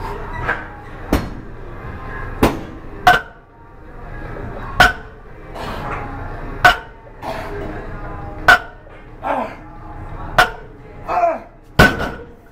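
Loaded barbell set down on the gym floor again and again during deadlift reps: sharp metallic clanks of the plates about every two seconds. Between the clanks come short grunts and breaths from the lifter.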